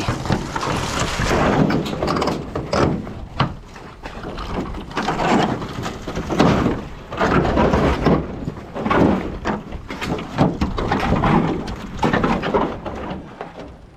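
Sheets of roofing tin being lifted and shifted, the metal rumbling, wobbling and scraping in repeated bursts about once a second.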